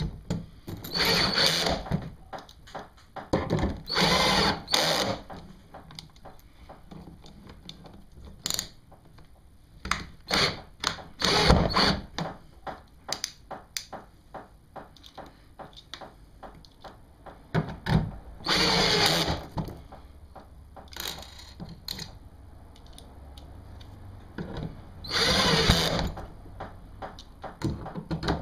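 Power drill running in short bursts of about a second each, five or so times, with clicks and knocks of handling between them, as holes are drilled and fasteners driven to mount the track rails on the kayak hull.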